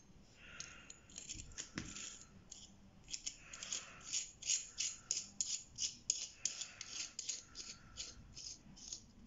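Worn BMX single-speed freewheel turned by hand, its ratchet ticking in quick runs of small metallic clicks, about three or four a second, with some metal-on-metal rubbing. The freewheel is worn out ('morte') and turns stiffly.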